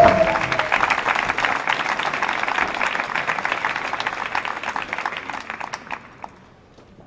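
Theatre audience applauding, a dense patter of many hands that slowly thins and dies away about six seconds in.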